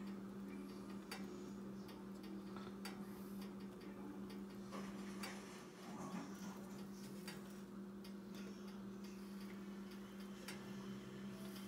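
Quiet kitchen background: a steady low hum with faint, irregular light ticks and clicks, about one or two a second.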